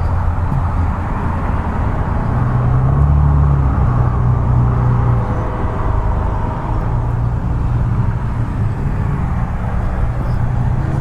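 Steady low rumble of motor traffic, its engine pitch shifting slowly as vehicles pass.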